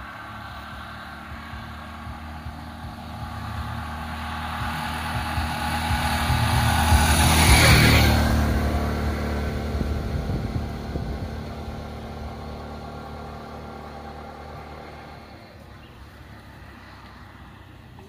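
Three-wheeler auto-rickshaw driving past: its engine grows louder, passes close about halfway through, and then fades away.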